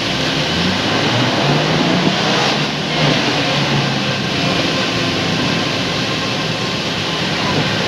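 Car driving along a rain-wet road, heard from inside the cabin: a steady engine hum under a continuous hiss of tyres on the wet surface.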